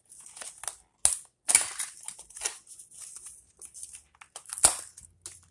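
A cardboard toy box being handled and opened: rustling and crinkling with several sharp clicks and knocks, the loudest about a second and a half in and again near the end.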